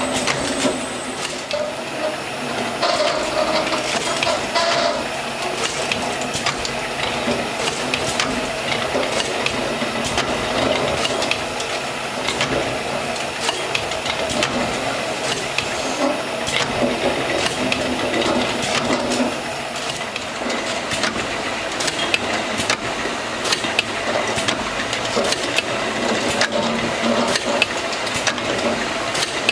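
LAB8501 can labelling machine running, a steady mechanical whir from its conveyor and rotary feed table. Frequent irregular clicks and clinks come from aluminium drink cans knocking together and against the guides as they are fed past the label applicator.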